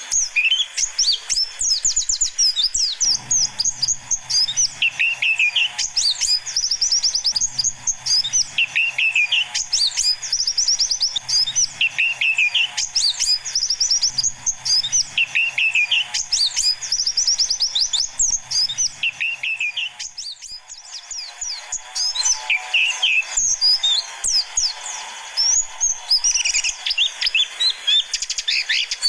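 White-eyes (pleci) singing: fast, high, continuous twittering with a lower swooping phrase repeated about every two seconds. This is lure song used to excite kept white-eyes into singing. A faint low hum sits underneath for much of the time.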